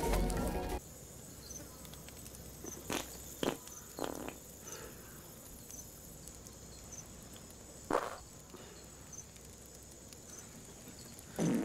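Film score cutting off about a second in, then crickets chirping steadily at night. Over them come several short farts from men sleeping in hammocks: three close together around three to four seconds in, one near eight seconds, and the loudest near the end.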